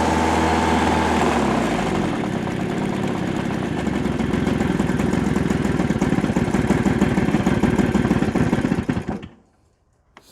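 Toro Snowmaster 20's two-stroke engine running steadily, then slowing and running rough after about a second and a half, and dying abruptly about nine seconds in. It is being choked to stall it, because the ignition kill switch fails to ground it out.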